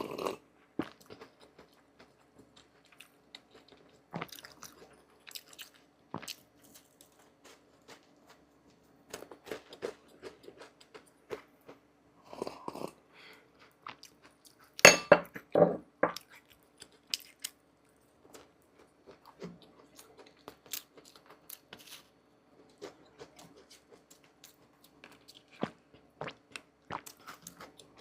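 Crunchy food being bitten and chewed, with scattered crackles and clicks and a louder burst of crunching about halfway through, over a faint steady hum.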